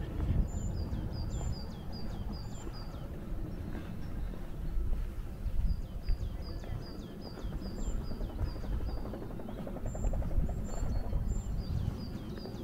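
A small songbird singing runs of short, rapid high chirps, three runs in all, over a steady low rumble.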